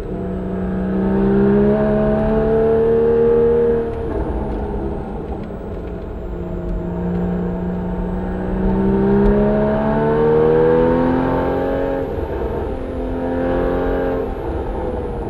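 Porsche 981 Cayman S's 3.4-litre flat-six running through a Soul Performance aftermarket exhaust, accelerating. The revs climb, drop at a gear change about four seconds in, climb again for several seconds, drop once more about twelve seconds in, and rise again near the end.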